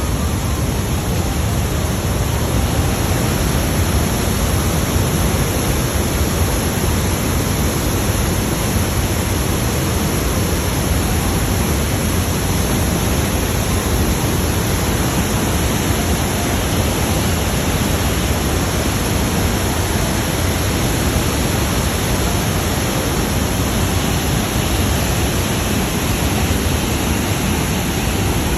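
Waterfall pouring, a loud steady rush of water with no change in level.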